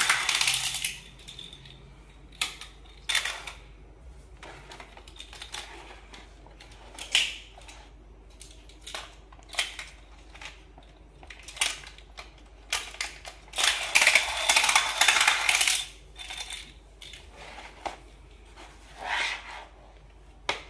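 Small plastic toy cars clicking and clattering on a plastic zigzag ramp track as they are set on it and rattle down from level to level, with scattered single clicks and a longer run of clatter about 14 seconds in.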